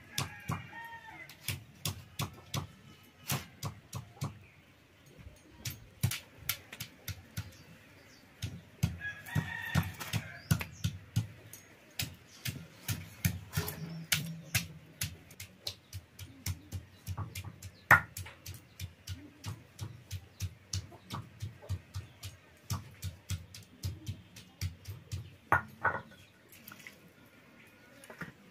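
Rapid sharp clicks and knocks, two or three a second, of chicken being cut into pieces on a boti blade. A rooster crows once about nine seconds in, with hen clucks at times.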